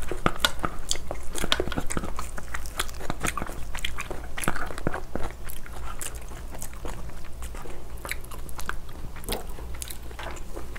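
Spoon scraping the roe and innards out of a soy-marinated crab shell (ganjang gejang) into a bowl of rice, heard close up as many small clicks, scrapes and wet squelches of the spoon against the shell and the bowl.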